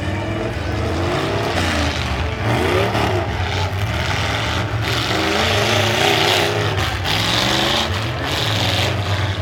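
Several demolition derby car engines running and revving together, their pitch repeatedly rising and falling over a steady low drone. A hiss joins in for a couple of seconds about five seconds in.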